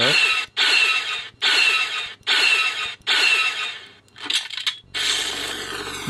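Star Wars E-11 blaster firing sound effects, played through a homemade Arduino prop's small amplifier and speakers in its attack mode: about six shots in a steady rhythm, one every 0.8 seconds or so, each lasting just over half a second. Near the end the shots stop and a continuous hissing starts: the prop's flamethrower effect.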